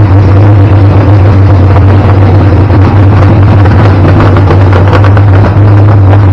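Twin-turbo race engine of a 1980 Camaro idling loudly and steadily shortly after being restarted, with 80 pounds of oil pressure showing.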